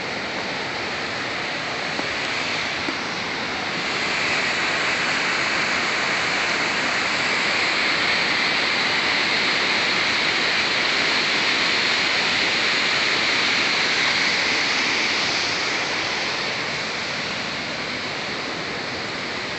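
Steady rush of falling water from the canyon below, louder through the middle while the view faces out over the valley.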